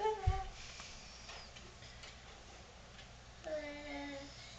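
A baby's wordless vocal sounds: a short falling coo at the start, a low thud just after it, then a held 'aah' lasting nearly a second near the end.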